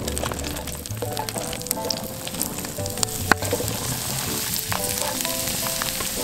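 Halved Brussels sprouts and chopped red onion tipped into a hot cast-iron pot, sizzling and frying, with scattered sharp clicks and knocks as the pieces drop in.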